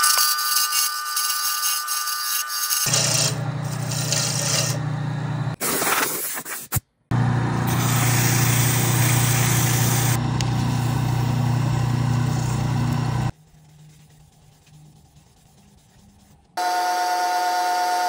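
Small wood lathe spinning a pen blank of elder burl and deer antler, with a tool cutting the turning blank and then sandpaper rubbing against it. The sound comes in several short clips, the motor hum and rubbing changing abruptly from one to the next.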